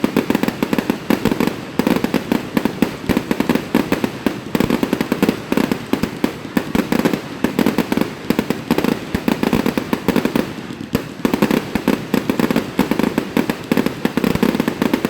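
Fireworks going off in a dense, continuous barrage of overlapping bangs and crackles with no pause.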